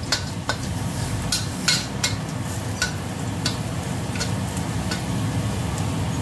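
Metal wok ladle scraping and clinking against a stainless steel wok, about two strokes a second at uneven spacing, while minced garlic and chili sizzle steadily in hot oil.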